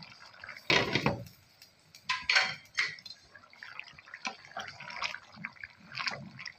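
Curry simmering and bubbling in a non-stick frying pan, with knocks and scrapes as a glass lid is handled over the pan and a wooden spatula stirs. The loudest clatter comes about a second in, with more knocks about two to three seconds in.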